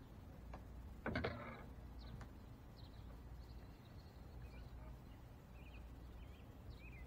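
Faint, short bird chirps over a low steady outdoor rumble, with one sharp knock about a second in.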